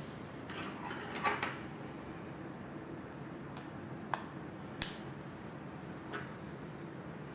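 Small metal clicks and a brief scrape from hand tools on a nylon-insert nut and bolt as the saddle is fastened to the seat post: a scrape about a second in, then a few sharp clicks, over a low steady hum.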